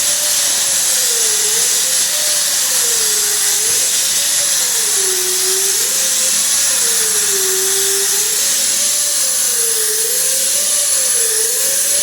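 Power sander spinning a 36-grit hook-and-loop disc, stripping layers of paint, lacquer primer and body filler off a car body panel. Its whine dips and rises every second or so as the disc is pressed into the panel and eased off, over a steady grinding hiss.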